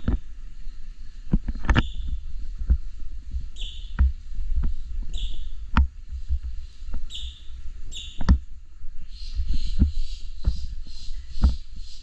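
Dull thumps of footsteps and handheld-camera handling. Short high chirps come every second or two, then turn into a rapid pulsing chatter about three quarters of the way through.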